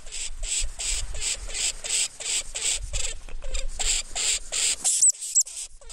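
Lemming calling: a fast, even run of high, raspy squeaks, about four a second, ending with two short shrill whistles about five seconds in.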